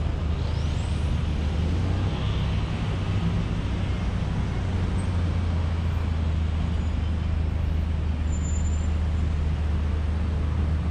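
Steady low rumble of road vehicle noise, a motor vehicle running on the road.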